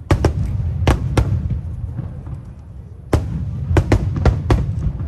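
Aerial firework shells bursting: sharp bangs in two clusters, about four in the first second and a half and about five more starting about three seconds in, over a low rumble.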